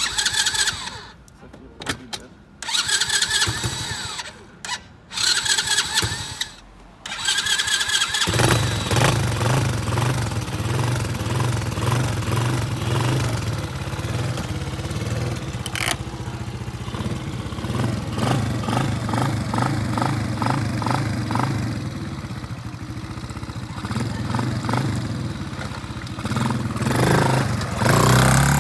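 125 cc four-stroke ATV engine cold-started with the choke pulled. The starter cranks in several short bursts, and the engine catches about eight seconds in and runs steadily, revving up near the end as the quad pulls away.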